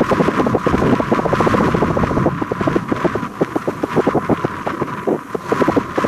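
Strong wind buffeting the microphone: a loud, continuous rushing with a rapid, irregular flutter.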